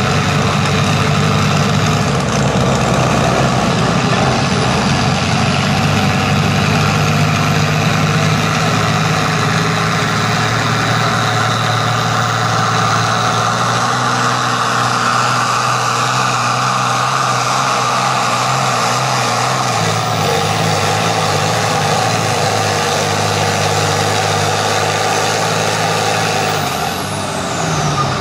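International Harvester farm tractor's diesel engine running hard under full load while it drags a weight-transfer pulling sled, with a faint high whine above it. Near the end the engine note and the whine both drop as the throttle comes off at the end of the pull.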